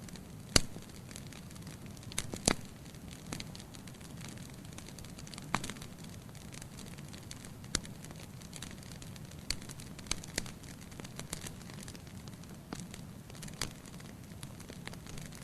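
Wood fire crackling in a fireplace: sharp pops and snaps every second or so, the loudest near the start, over a steady low rumble of the flames.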